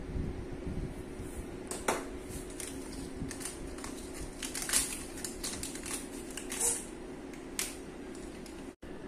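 A foil test-kit pouch torn open and handled by hand: a string of crinkles, sharp crackles and clicks, then the plastic test cassette handled on the bench, over a steady low hum.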